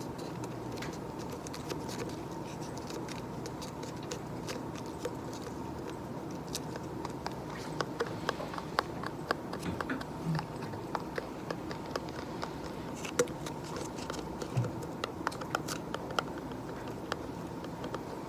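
Scattered light taps and clicks over a steady background hiss, becoming more frequent in the second half.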